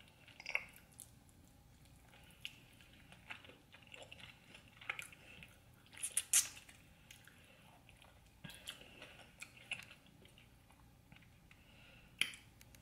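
Close-miked chewing of soft stewed oxtail: wet mouth clicks and lip smacks at irregular intervals, the sharpest about six seconds in.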